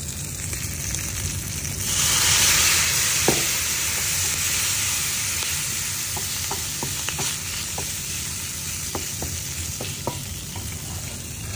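Pieces of cuttlefish sizzling as they fry in a pan and are stirred with a wooden spatula, with light scattered taps. The sizzling gets louder about two seconds in and then eases off gradually.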